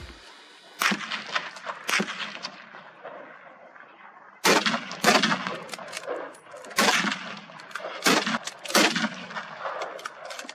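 A string of hunting rifle shots fired at running wild boar: about seven loud cracks spaced one to two seconds apart, with a few fainter ones between them. Each shot is followed by a long echo that fades away.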